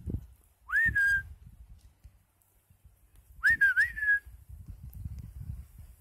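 A person whistling twice to call goats. Each call is a short upward swoop that levels off, and the second wavers in the middle.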